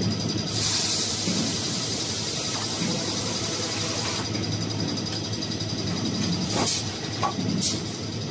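Automatic toilet paper rewinding line running with a steady low hum. A loud hiss starts about half a second in and lasts about three and a half seconds, and two short hisses come near the end.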